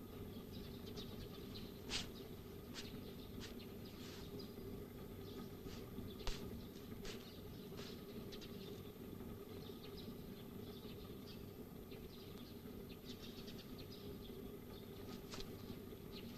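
Quiet, steady low hum with scattered faint high clicks and short chirps; two sharper clicks stand out, about two and six seconds in.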